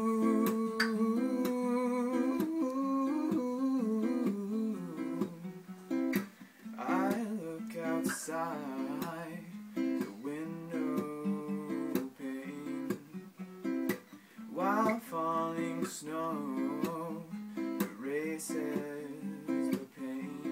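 Steel-string acoustic guitar playing chords, with a young man's voice singing over it in a few phrases from about seven seconds in.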